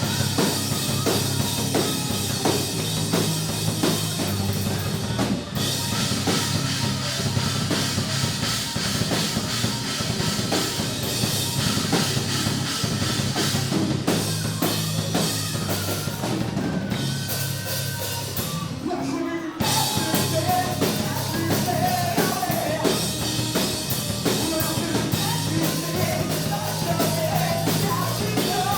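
A rock band playing live: drum kit with heavy bass drum under guitars and bass. The music breaks off briefly about two-thirds in, then comes back with singing over it.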